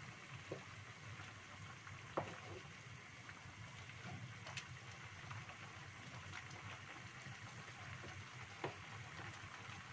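Vegetable and chicken-feet soup simmering in a wok with a steady hiss, stirred with a wooden spatula that knocks against the pan a few times, the loudest knocks about two seconds in and near the end.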